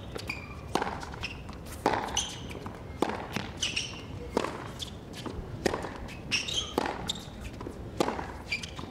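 Tennis ball hit back and forth in a hard-court rally: sharp racket strikes and ball bounces about once a second, with short high squeaks in between.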